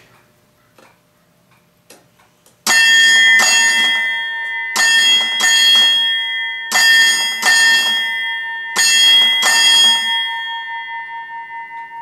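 Chelsea Automatic Ship's Bell's clock-driven striker ringing its large chrome bell, loud, striking eight bells for 8 o'clock in ship's time: four pairs of quick double strokes about two seconds apart, starting a little over two seconds in. After the last stroke the bell keeps ringing, with a slow pulsing in the tone as it dies away.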